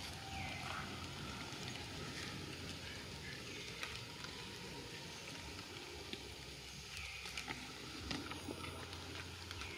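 Faint outdoor forest ambience: a steady crackly hiss with scattered light ticks, and three or four short high arching calls at intervals of a few seconds.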